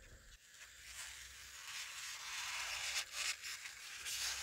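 Faint rustling and rubbing of a paper towel as it is handled and wiped, building from about a second in, with a few short scuffs.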